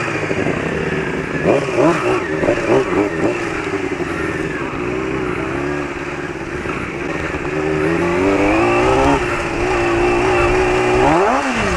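Motorcycle engine being ridden, its revs going up and down with the throttle, climbing and holding about two-thirds of the way through, then a sharp rev up and drop near the end.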